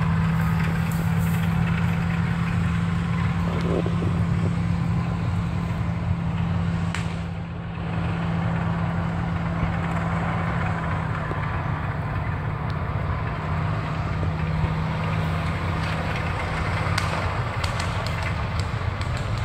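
A vehicle engine running steadily at a constant low hum, with no change in pace.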